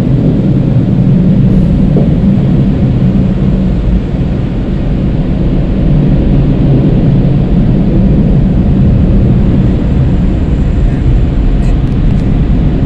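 Automatic tunnel car wash heard from inside the car's cabin: a loud, steady rushing and rumbling of water spraying against the car and the wash machinery.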